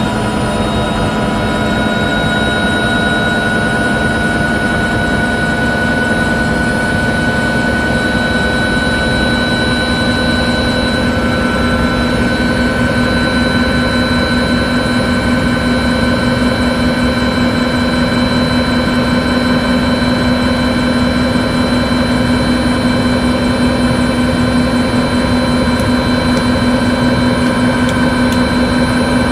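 Helicopter running steadily, a turbine whine layered over the dense rotor and engine noise, its pitch creeping up slightly.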